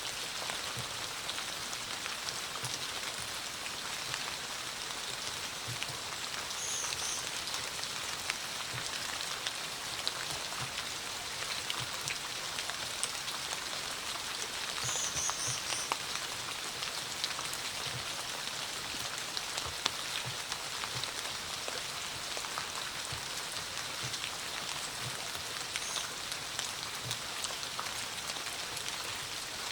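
Steady rain falling, an even hiss with many individual drops tapping. Three brief faint high chirps come through the rain, about 7, 15 and 26 seconds in.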